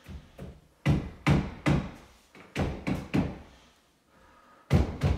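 A large epoxy shower wall panel being pushed and bumped into place against the glued wall, giving a string of dull thumps and knocks. They are loudest from about a second in and again near the end.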